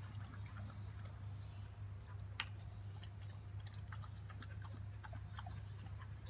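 Dogs lapping and licking at a little water, a scattering of small wet clicks with one sharper click about halfway, over a steady low hum.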